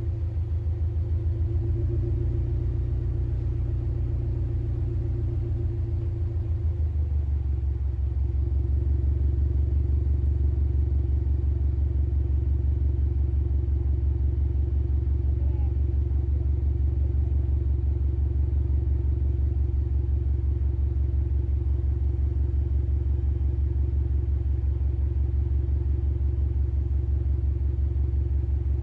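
Subaru Levorg's CB18 1.8-litre turbocharged flat-four idling through an STI Performance Muffler, with the uneven boxer burble of its unequal-length exhaust. About seven seconds in, the idle steps down to a lower, deeper, steady beat.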